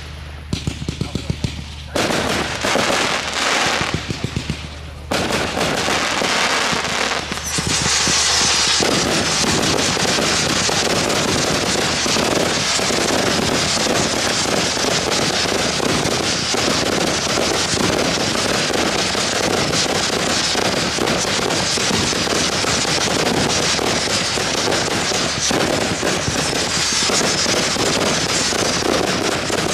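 Fireworks display: a few separate sharp cracks, then denser popping, then from about seven seconds a dense, continuous crackle of many small reports that keeps going.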